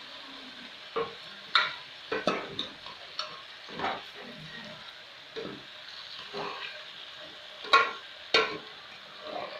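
A metal spoon stirring potato and cauliflower pieces in a metal pot, scraping and knocking against the pot about ten times at an irregular pace, over a steady sizzle of the vegetables frying in spiced oil.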